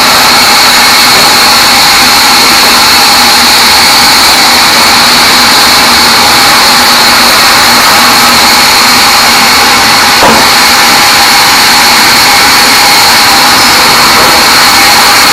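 Large sawmill band saw running loud and steady as short teak logs are fed through it, with one short knock about ten seconds in.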